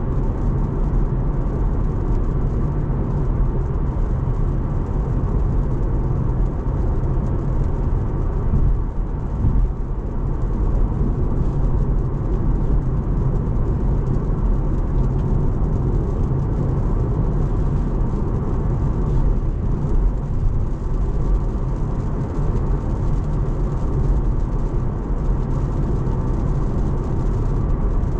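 Steady tyre and road noise heard inside the cabin of a Tesla electric car cruising at expressway speed on a wet road.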